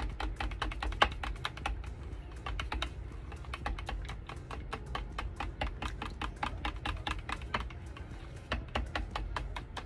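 Stir stick clicking and scraping against the sides of a cup while thick white acrylic pouring mix is stirred: a quick, irregular run of ticks, about six a second, with one sharper knock about a second in.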